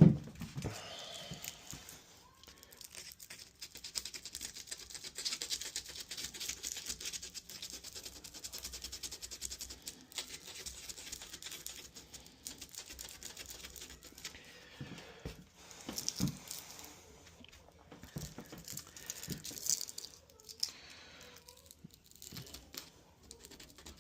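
Hand tool scraping and rasping against a door-lock fitting to round off a corner: a long run of dense scratchy strokes, then a few separate louder scrapes and knocks near the end.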